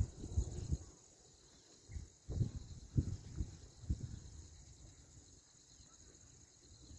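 Steady high-pitched chorus of insects. A few low rumbles of wind or handling on the microphone come in the first second and again from about two to four seconds in.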